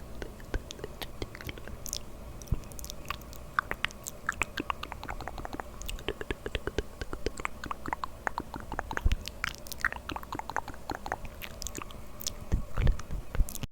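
Close-miked ASMR mouth sounds: a dense, irregular run of short wet clicks and smacks from lips and tongue.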